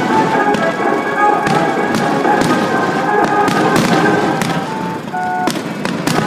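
Aerial fireworks bursting in quick succession, a string of sharp bangs and crackles scattered throughout, over music with steady held notes.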